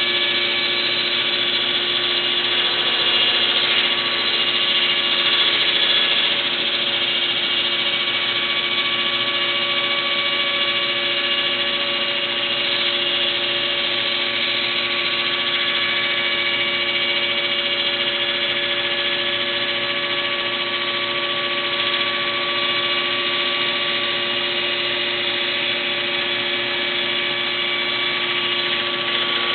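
Rack saw-bench with its circular saw running steadily: a continuous mechanical whine with several held tones, slightly louder a few seconds in.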